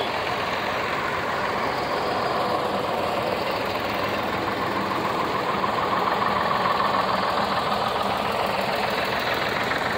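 Engines of a line of vintage farm tractors running steadily as they drive past one after another. The sound swells a little as the nearest tractor goes by, about two-thirds of the way through.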